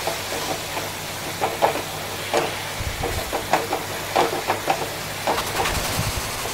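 Grated carrots sizzling in hot ghee in a steel kadai over a high gas flame, with irregular scrapes and knocks of a spatula stirring them against the pan.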